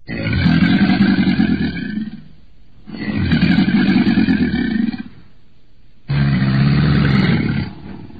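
Crocodile bellowing: three long, deep calls of about two seconds each, with short pauses between them.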